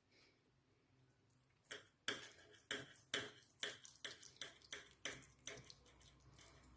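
A series of about a dozen light, sharp clicks, two to three a second, starting just under two seconds in and dying away after about five seconds.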